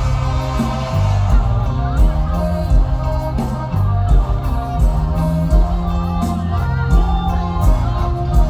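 Live mor lam band music, loud and continuous, with a pitched bass line changing notes under a steady drum beat and a voice singing over it.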